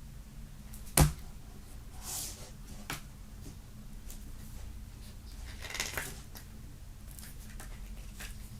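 Hands handling the contents and packaging of a CD box set: one sharp knock about a second in, a lighter click about two seconds later, and soft rustles of paper or card around them.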